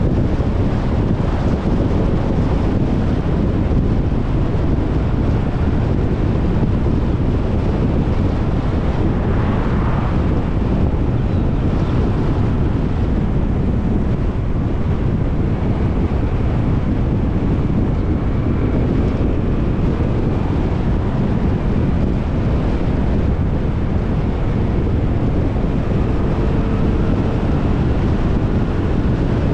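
Steady wind buffeting the microphone of a moving scooter, with a vehicle engine running underneath.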